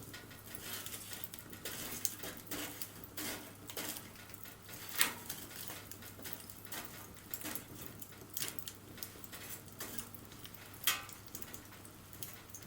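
Wood fire burning, crackling with irregular sharp pops and snaps, two louder pops about five and eleven seconds in.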